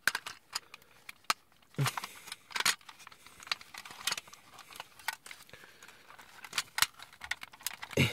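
Hard plastic parts of a DX Great Sungard transforming-and-combining robot toy clicking and knocking as they are handled and pressed together. Scattered sharp clicks, a duller knock about two seconds in, and the loudest knock right at the end, as a leg joint snaps and locks into place.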